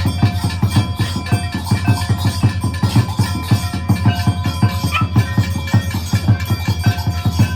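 Music with fast, steady drumming, about five or six drum beats a second, under held ringing tones.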